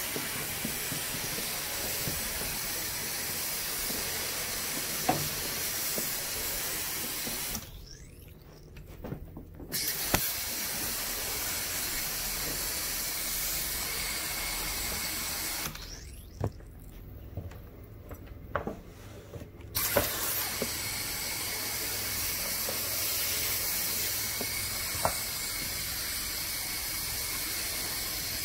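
Carpet pre-spray sprayer hissing steadily as cleaning pre-treatment is misted onto the carpet to break down the dirt. The spray stops twice, briefly about a quarter of the way in and for a few seconds around the middle, with a few sharp clicks along the way.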